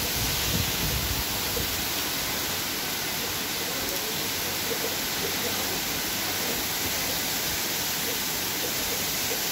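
Heavy thunderstorm rain pouring down in a steady hiss.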